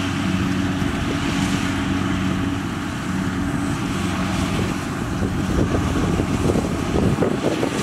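Kubota rice combine harvester's diesel engine running steadily as the machine cuts through the crop. From about five seconds in, wind buffets the microphone and a gusty rumble covers the engine hum.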